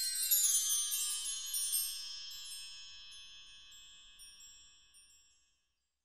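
High chimes, many bright tones after a downward run, ringing on and slowly dying away to silence near the end.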